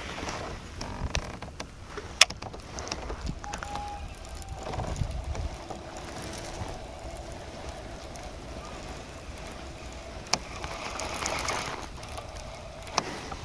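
Fishing reel being cranked to retrieve a metal vibration lure, a faint steady whir, with a few sharp clicks or knocks around the kayak and a low wash of water and wind.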